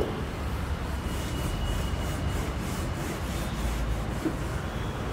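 Whiteboard being wiped with a duster in quick back-and-forth strokes, about three a second, over a steady low background hum.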